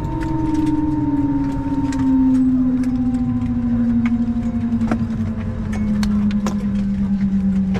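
Airliner engines heard inside the Airbus A321 cabin, their steady tone falling slowly in pitch as they spool down, over a low rumble with scattered small rattles and clicks.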